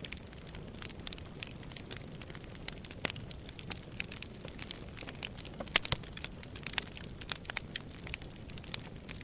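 Wood fire crackling in a fireplace: irregular sharp pops and snaps over a low steady rumble of the flames, with one louder pop about six seconds in.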